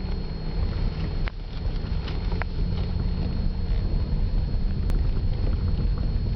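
Steady road and tyre rumble inside a moving Toyota Corolla, with a few light clicks spaced a second or more apart.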